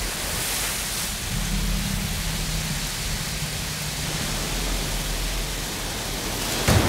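Storm rain and wind, a steady hiss, with a sudden loud crack near the end.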